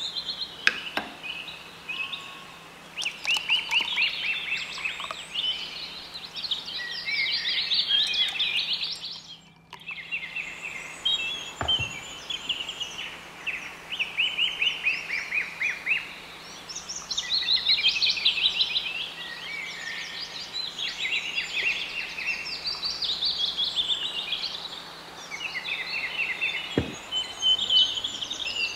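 Birds chirping and trilling in quick runs of rapidly repeated notes, which break off briefly about ten seconds in.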